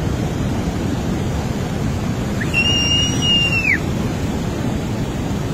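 Floodwater and debris rushing down a mountain stream channel in flash flood, a steady heavy rush. About halfway through, a single high whistle is held for just over a second, rising at the start and dropping away at the end.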